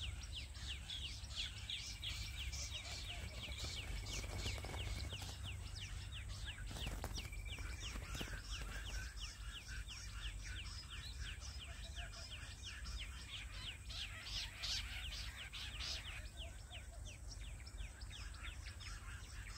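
Jungle bush quail call: a fast, continuous run of short chirps, each sliding downward, several a second, which stops a few seconds before the end. It is the call used as a lure to draw the quail into the traps. A steady high whine and a low rumble run underneath.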